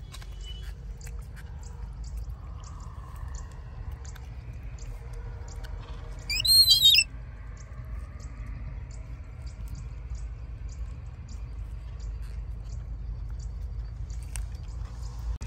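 A young monkey gives one high, wavering squeal lasting under a second, about six seconds in. Under it, faint clicking of a baby monkey biting and chewing kernels off a corn cob.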